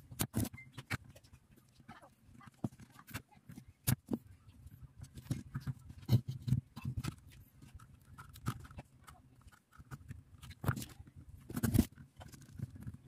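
Scattered sharp clicks and knocks of desoldering work: a spring-loaded desoldering pump being cocked and fired at the solder joints of a circuit board, with tools and boards handled on a wooden table. The loudest snaps come near the start, about four seconds in and near the end.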